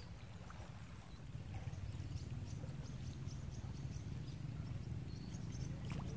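Outdoor ambience: a low steady rumble that grows slightly louder about a second and a half in, with faint short high chirps scattered through it.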